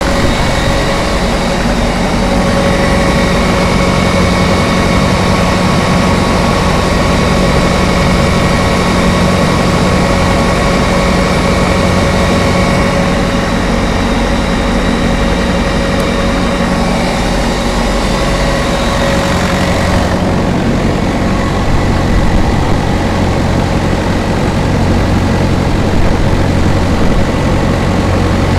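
Carrier refrigeration unit's four-cylinder diesel engine running steadily, with a whine over the low engine note. About twenty seconds in the sound shifts: the higher whine drops away and the low note grows stronger.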